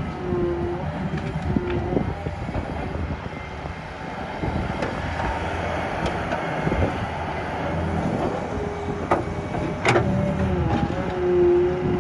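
Solar 130 hydraulic excavator running under digging load: diesel engine with a wavering hydraulic whine over it. Two sharp knocks come near the end.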